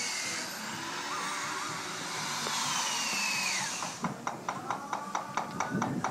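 Stonemason's workshop tool noise: a steady hissing run of a power tool, then, from about two-thirds in, rapid sharp taps about five a second.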